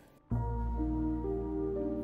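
Quiet, slow background music: after a brief silence, a low sustained chord comes in and further held notes enter one after another.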